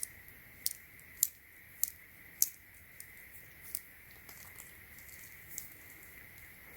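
A series of light, sharp clicks and taps, about five in quick succession in the first two and a half seconds and then a few fainter ones, from plugging in and handling a bench power supply's power cord. A faint steady high-pitched whine sits underneath.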